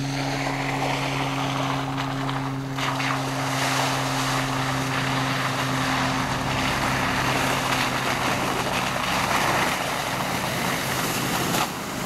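Hummer 4x4 engine and tyres approaching through slushy mud and snow, building to a steady rush of engine and tyre noise about three seconds in. Under it runs a steady low hum that fades out about two-thirds of the way through.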